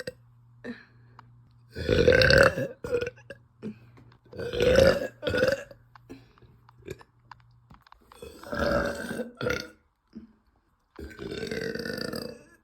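A woman burping loudly, four burps a few seconds apart. Two of them are followed by a short second burp, and the last is quieter and more drawn out.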